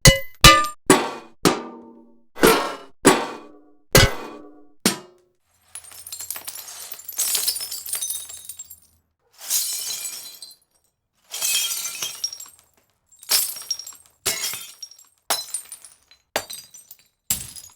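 A string of separate sound effects: a run of sharp bullet-hit impacts with short ringing tails, then three longer glass-shattering crashes with tinkling debris, then another quick run of sharp hits.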